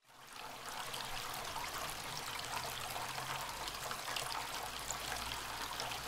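Tabletop fountain water falling from a tilted terracotta pot onto stones and into the basin: a steady splashing trickle that fades in at the start.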